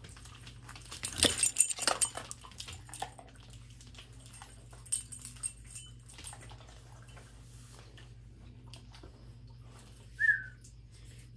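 A burst of rustling and knocks about a second in, then a dog gives one short, high whimper near the end.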